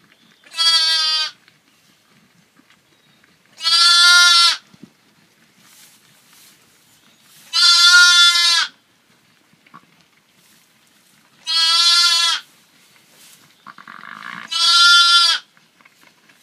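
Newborn Texel lamb bleating: five high bleats, each about a second long, spaced roughly four seconds apart.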